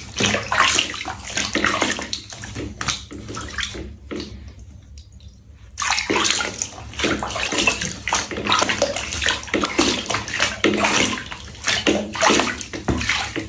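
Water sloshing and splashing in a bath, in irregular bursts, with a lull of about two seconds near the middle.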